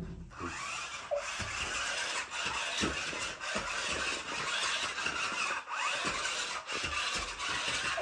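Remote-control stunt car's small electric motors whirring as it drives over carpet, with a few short knocks.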